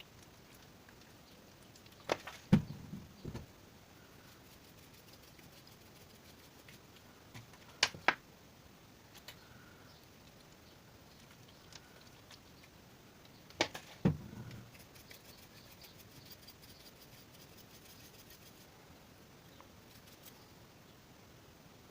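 Hard small parts and tools being handled at a workbench: three short clusters of sharp clicks and knocks, about six seconds apart, over quiet room tone.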